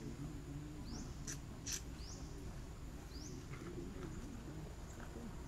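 An animal's short rising chirp, repeated about once a second over a steady high insect-like whine, with two sharp clicks a little before halfway.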